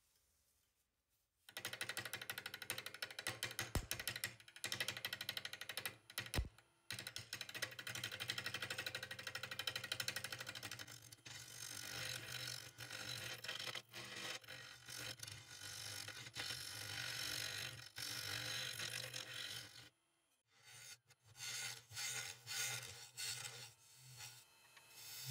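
Turning tool cutting a spinning wood-and-resin disc on a lathe: a rapid, even chatter of the tool against the piece over the lathe's hum. It starts about a second and a half in, breaks off briefly near the end, then comes back in shorter cuts.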